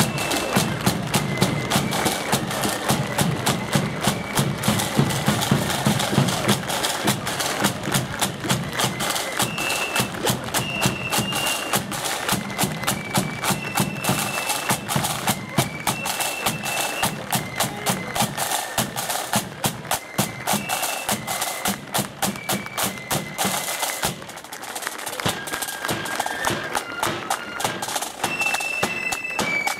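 Marching flute band playing a march: flutes carry a stepping melody over snare drums and a bass drum beating steadily. About three-quarters of the way through the heavy low drumming drops out and the playing thins to flutes and lighter drums.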